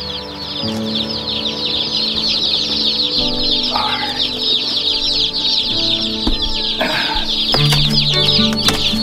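Many day-old chicks peeping at once inside their cardboard shipping box: a dense, continuous chorus of high, short peeps, with soft background music underneath.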